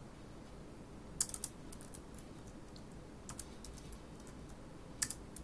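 Scattered keystrokes on a computer keyboard: a short run of clicks about a second in, a few single taps after it, and another quick run near the end.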